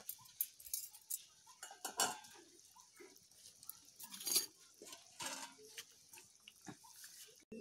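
Curry simmering in an iron kadai: irregular small pops and clicks of bubbling, with a few sharper clicks from a spatula against the pan.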